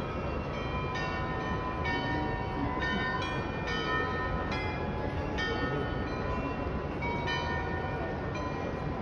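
The Munich Rathaus-Glockenspiel's bells playing a tune, about two struck notes a second, each note ringing on under the next, over a steady low rumble of background noise.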